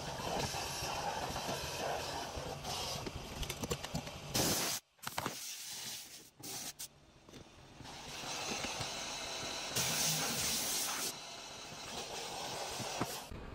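Steam cleaner hissing as it sprays steam, with two louder blasts: a short one about four seconds in and a longer one, about a second long, near ten seconds in.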